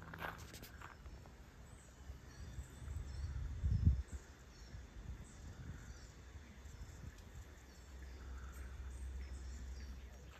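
Faint birds chirping in open parkland, with wind rumbling on the microphone, loudest about four seconds in. A couple of footsteps on a gravel path at the very start.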